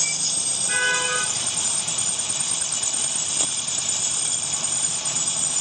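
Metalworking lathe running with a steady mechanical hiss. A brief pitched tone sounds about a second in, and a single click comes past the middle.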